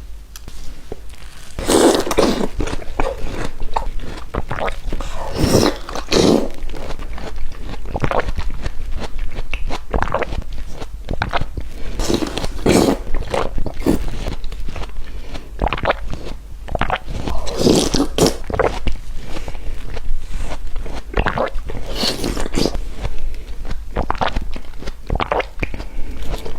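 Close-miked eating: a person biting and chewing crunchy food, with dense irregular crunching and louder bites every few seconds.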